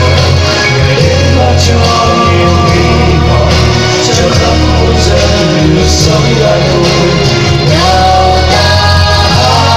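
Loud music with singing, in the style of a choral Christmas hymn, over a steady bass; no fireworks bangs stand out.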